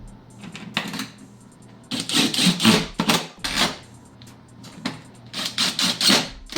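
Cordless impact driver running in several short bursts, driving the door panel screws home.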